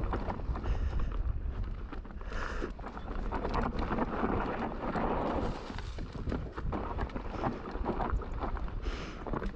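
Mountain bike rolling down a rocky trail, clattering over rocks with many quick knocks and rattles, and wind rushing on the microphone.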